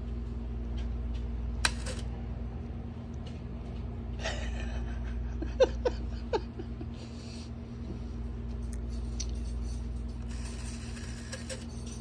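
Black rotary telephone's dial being fingered and turned: a few scattered sharp clicks and short rattles, over a steady low hum.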